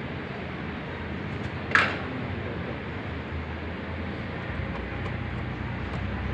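Split-type aircon outdoor unit under test after repair, with a steady mechanical hum. A sharp click comes about two seconds in, and a deeper low hum sets in about halfway through.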